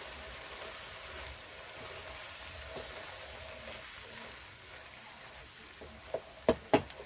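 Lauki and chana dal sizzling steadily in a frying pan as a wooden spoon stirs and mashes the gourd pieces. About six seconds in come three sharp knocks of the wooden spoon against the pan.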